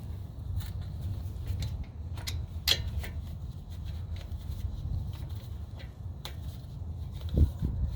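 A few sharp metallic clicks and a heavier clunk near the end, from a brake caliper and tools being handled as the caliper is fitted back over the new pads, over a steady low rumble.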